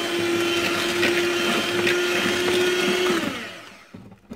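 Electric hand mixer beating eggs and sugar in a plastic bowl, a steady motor whine with the whir of the beaters. About three seconds in it is switched off and winds down, and a single knock follows near the end.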